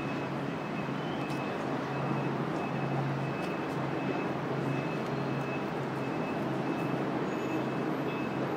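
Steady street traffic noise with a low, even engine hum and a faint high whine.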